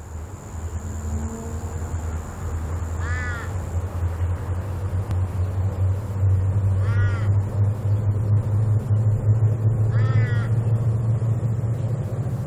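Deep diesel drone of three CL class diesel-electric locomotives under power, growing steadily louder as they accelerate toward the line. A crow caws three times over it, about three, seven and ten seconds in.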